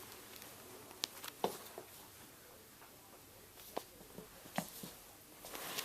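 Kittens playing on a blanket: faint scattered light taps and scuffs, with a few sharper clicks and a rustle building near the end.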